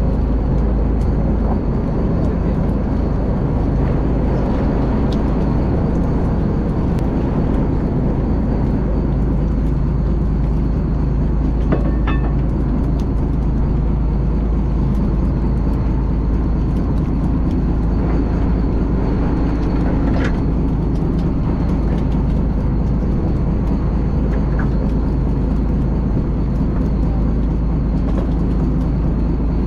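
A boat engine running steadily with a low rumble, under a few faint scattered clicks.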